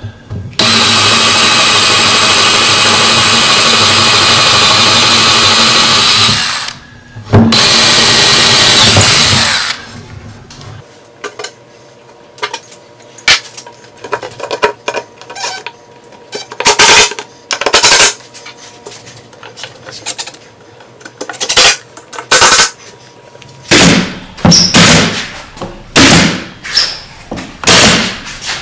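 Cordless drill drilling pilot holes for a cabinet pull through a hardware jig, in two runs: one of about six seconds, then one of about two and a half seconds. Scattered light clicks and knocks follow. Near the end comes a quick series of sharp shots from a pneumatic nailer, about one a second.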